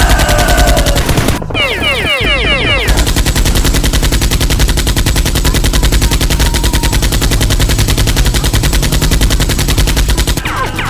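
Rapid automatic gunfire, a steady fast stream of shots, with a flurry of quick falling whistles about two seconds in.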